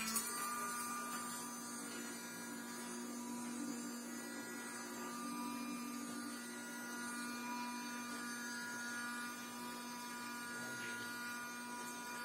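A 12 V car-wiper DC gear motor switches on and runs with a steady hum, driving the wiper bar by chain across a solar panel. The small 12 V windscreen-washer pump runs along with it, spraying water during the clockwise stroke.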